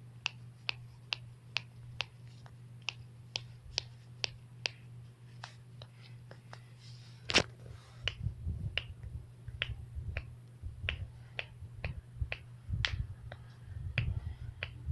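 A person's knuckles cracking over and over: sharp pops about two or three a second, with one louder pop about seven seconds in. A low rumbling joins in during the second half.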